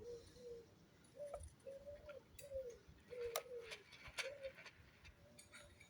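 A pigeon cooing faintly over and over, a string of short arched coos, with a few sharp clicks in the middle.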